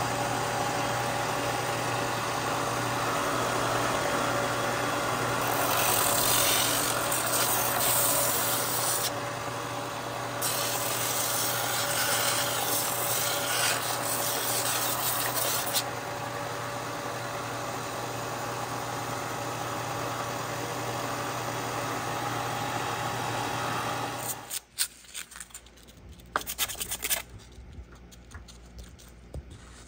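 Stationary 4 x 36 inch belt sander running with a steady motor hum while a body-filler-coated part is pressed against the belt, a rough rasping grind that is loudest in the first half. The sander cuts off about 24 seconds in, followed by a few light clicks and handling noises.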